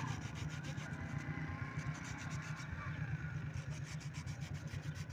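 Sandpaper wrapped on a rod being twisted back and forth inside the hole of a sewing machine's presser foot lifter: a quick run of rubbing, scraping strokes that sand the hole out so the lifter will turn freely on its pin. A low steady hum sits beneath.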